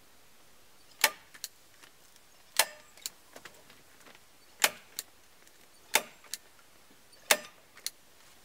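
Hand staple gun firing staples to fasten plastic insulation film to the cabin's logs: five sharp snaps, each followed by a lighter click.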